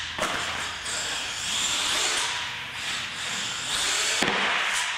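Radio-controlled monster truck's motor whirring and tyres scrubbing on a concrete floor. There is a sharp knock as it lands off a jump about a quarter second in, and another knock just past four seconds.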